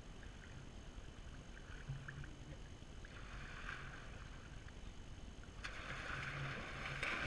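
Swimming-pool water lapping and splashing. The splashing grows about three seconds in, and again louder near the end, as someone moves through the water.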